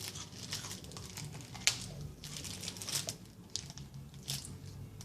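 Biting into and chewing a ghost chili pepper: irregular wet crunches and crackles, with one sharp click about a second and a half in.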